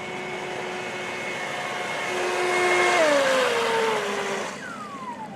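Electric motor of a remote control model boat whining at full throttle on a high-speed run, with a rushing hiss of water. The whine holds one pitch and grows louder, then slides down in pitch about three seconds in as the throttle is eased, and the rush fades soon after.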